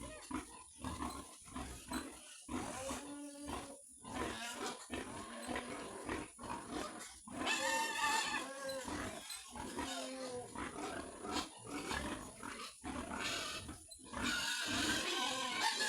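A pen of pigs grunting and squealing, many short overlapping calls with a few longer, higher squeals in between.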